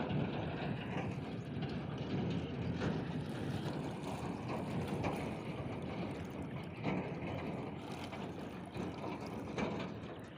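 Wind rumbling on the microphone over river water sloshing around a person wading and hauling in a gill net by hand, with a few brief splashes.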